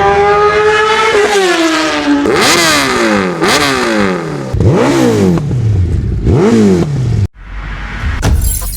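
Sport motorcycle engine revving loud: the revs wind down over the first couple of seconds, then four quick throttle blips, each rising sharply and falling back.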